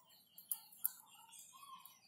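Faint birds chirping in the background, with two short, sharp clicks about half a second and just under a second in.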